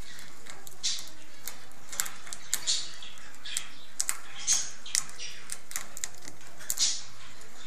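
White squirrel gnawing and crunching on a piece of hard food: irregular sharp, crackly clicks, a dozen or so spread over several seconds.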